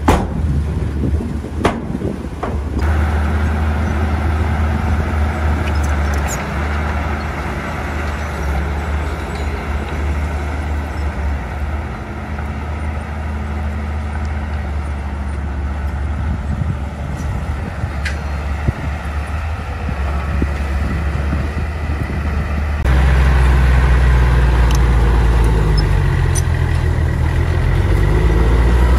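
Diesel engine of heavy earthmoving machinery running steadily, with a couple of sharp knocks in the first two seconds. About three seconds in the sound shifts abruptly. It shifts again about six seconds before the end, becoming louder, with the engine pitch wavering up and down as it works.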